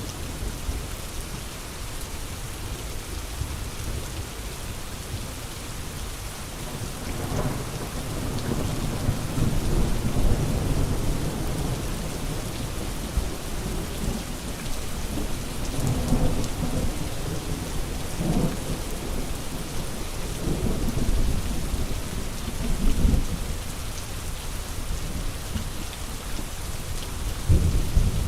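Thunderstorm: steady rain hissing, with low rolls of thunder that swell and fade again and again, strongest about ten seconds in and near the end.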